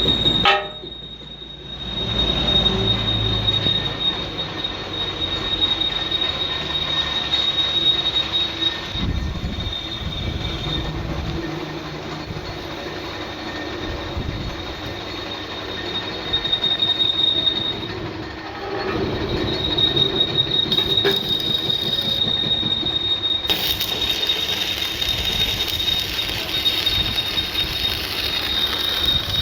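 Metalwork on a steel excavator bucket being repaired: a steady high-pitched whine over a rough, continuous hiss, with sudden shifts about a second in and again near the end.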